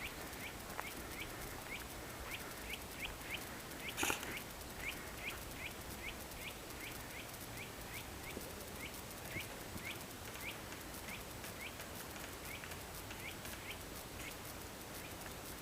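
A bird calling a long, steady series of short rising chirps, about two to three a second. There is a single sharp click about four seconds in.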